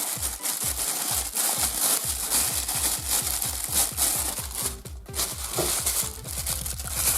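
Background electronic dance music with rapid, evenly spaced kick-drum beats under a hissing high sweep; about six seconds in, the beats give way to a steady bass.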